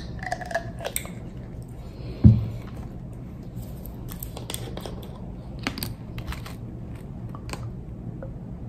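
Condiment bottles being handled on a table: scattered small clicks and taps, and one solid thump about two seconds in, the loudest sound, as a bottle is set down. Later come light clicks as a syrup bottle's cap is taken off.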